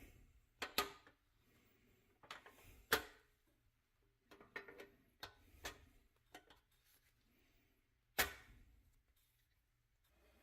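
Irregular clicks and taps of objects being handled, with a few louder knocks among them.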